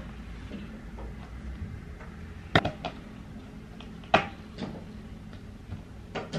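Flat-pack IKEA furniture being assembled by hand: a few sharp knocks and clicks of a screwdriver and metal fittings against the laminated panels, the loudest about two and a half and four seconds in.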